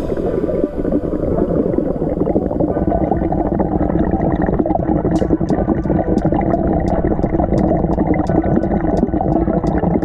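Muffled, low gurgling water as heard by a camera submerged in a fish tub, with faint regular ticks about twice a second.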